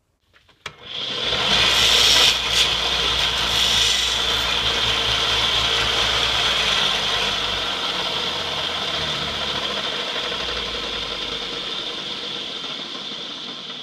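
Power tool grinding away and rounding off the end of a small plastic strip, running steadily after starting about a second in and easing off slightly toward the end.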